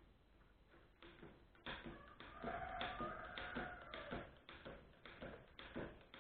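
Hand tools working on the tractor's metal front end: a series of short clicks and knocks, about three a second, starting a couple of seconds in, with a brief ringing tone among them.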